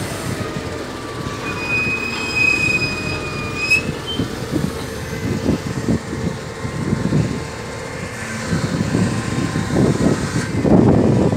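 Wheel loader's diesel engine running as the machine creeps forward, with a high metallic squeal for about two seconds early in the run that rises slightly before it stops. The engine gets louder near the end.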